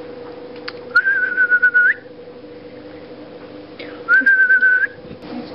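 A person whistling twice, each whistle about a second long on one steady high note that lifts at the end, over a faint steady hum.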